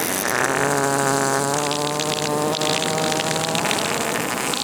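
Prank fart sound effect: a long, buzzing fart held at a steady low pitch for about three and a half seconds before it stops.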